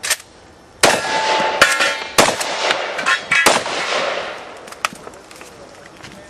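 Remington 1100 semi-automatic shotgun firing several shots over about three and a half seconds, with steel targets clanging and ringing between the shots, then a few smaller clicks and knocks.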